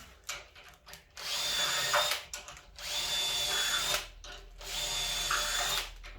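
Power drill spinning a self-centering pilot bit into the hinge screw holes on a door edge, in three short runs of about a second each with short pauses between.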